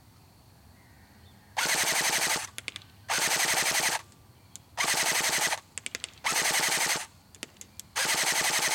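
Colt M4A1 airsoft electric gun (AEG) firing on full auto: five short bursts of under a second each, starting about one and a half seconds in. Each burst is a fast, even rattle of shots. A few faint ticks come between the bursts.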